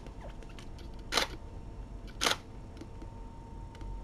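Camera shutter firing twice, about a second apart, over a faint steady hum.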